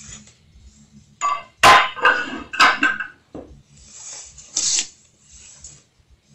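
Aluminium CNC frame parts being handled: a slotted aluminium extrusion plate set down on a metal bench with a few clanks and knocks about one to three seconds in, the loudest near the start of that run. Then the rustle and scrape of a foam packing sheet being lifted out of a cardboard box.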